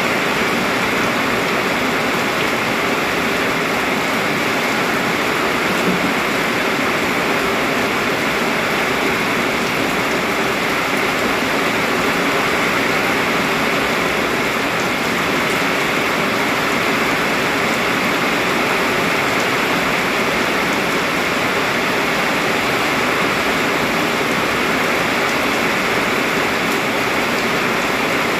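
Heavy rain pouring down steadily, a dense, even hiss of water.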